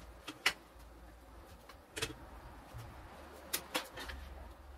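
A few sharp clinks of metal kitchen utensils against cookware, scattered and irregular, the loudest about half a second in, over a faint low hum.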